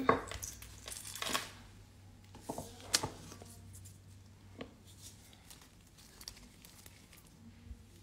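Gloved hands rustling and crinkling as items are moved about a work table, with a sharp click about three seconds in as a clear round palette is set down, then only small faint handling clicks.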